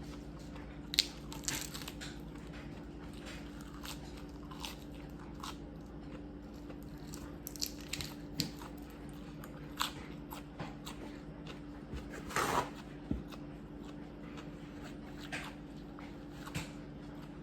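Close-up chewing and biting on seafood, with scattered crunches and clicks, loudest about a second in and again near 12 seconds. A steady low hum runs underneath.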